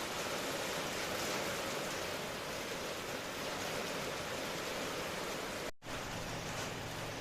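Steady rain ambience: an even hiss of falling rain, which cuts out for an instant nearly six seconds in.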